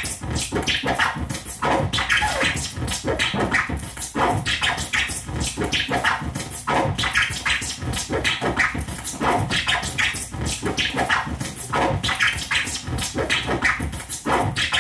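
Loud, dense scratchy crackling noise made of many rough, irregular strokes a second, played at a steady high level.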